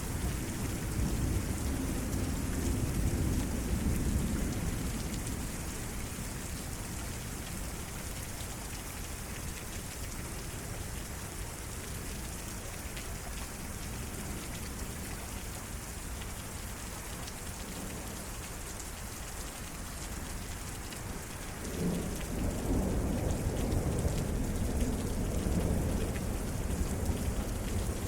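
Steady rain falling through a severe night thunderstorm, with thunder rumbling at first and fading out, then a fresh roll of thunder starting sharply a little over three quarters of the way through and rumbling on.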